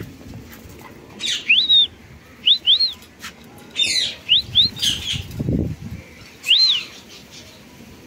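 Rose-ringed parakeets giving short chirping calls, each rising and falling, several in quick pairs, mixed with bursts of wing flapping as the birds fly in to the feeding bowl.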